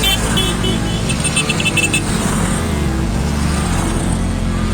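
Motor vehicle engines running steadily.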